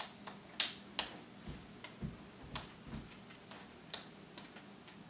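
A toddler's small hands clapping: a series of light, sharp claps at an uneven pace and of uneven loudness. A few dull low knocks fall among them.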